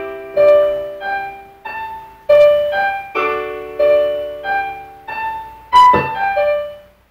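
Piano playing slow broken chords, each note struck and left to ring and decay, with a final chord about six seconds in that fades out near the end.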